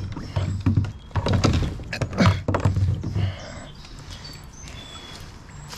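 Small fish flopping about on the deck of a sit-on-top kayak: a quick irregular run of knocks and thumps that stops about three seconds in.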